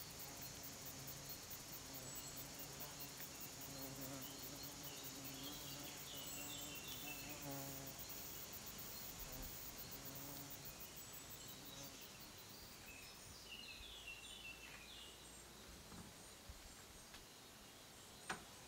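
Quiet summer countryside ambience: steady high insect chirring with a few short bird chirps, and a single sharp click near the end.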